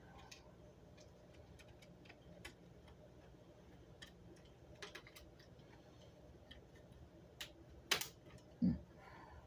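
Scattered small clicks and ticks of screws being set and driven into the plastic case of a fish finder display, with one sharper click about eight seconds in.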